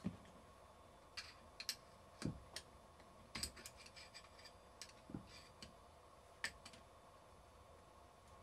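Scattered small clicks and taps, with three dull knocks, as a nut and bolt are worked into place by hand inside the compressor housing.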